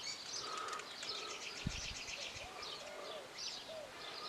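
Birds chirping and calling: rapid high chirps, repeated short whistled notes and a few lower swooping calls. A single low thump comes a little before halfway.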